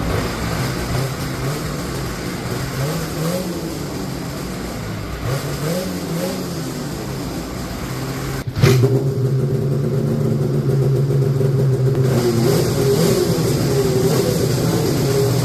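Polaris snowmobile engine idling with two short throttle blips on its stock exhaust. About halfway through, a sudden cut brings it back louder and fuller-toned, running on the aftermarket GGB trail can exhaust.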